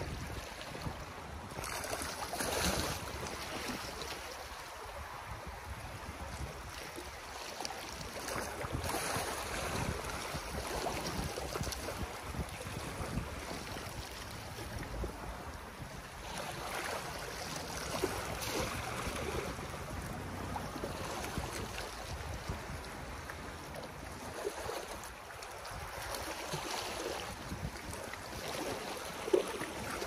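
Small sea waves lapping and splashing against the concrete blocks of a pier, swelling every several seconds, with wind buffeting the microphone. A short sharp slap of water comes near the end.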